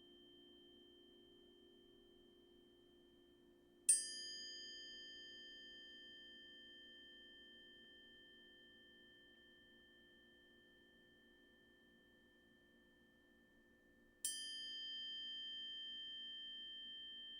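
A high-pitched chime is struck twice, about ten seconds apart. Each strike has a sharp attack and a long, slowly fading ring of several clear tones. Under it runs a faint, steady low hum.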